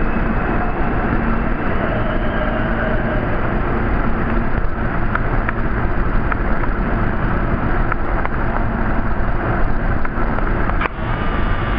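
R46 subway train pulling out of the station and running off down the tunnel: a loud, steady rumble of wheels on rail, with a faint high squeal early on and scattered light clicks.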